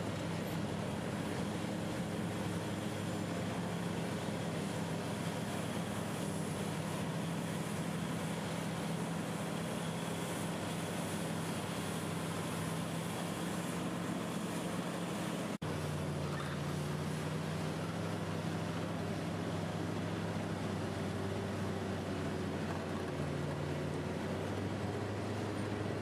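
Komatsu D575A bulldozer's V12 diesel engine running under load as it pushes earth, a steady low drone. The drone shifts abruptly to a different pitch about two-thirds of the way through.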